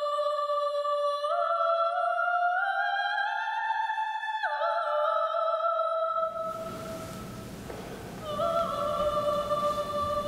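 Solemn background music: a slow melody of long held notes with a slight waver, stepping gradually upward and dropping back down about four and a half seconds in.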